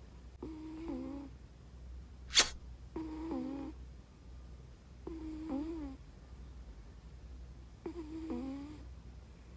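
Domestic cat snoring in its sleep: four pitched, wavering snores of under a second each, roughly two and a half seconds apart. A single sharp click just after two seconds in is the loudest sound.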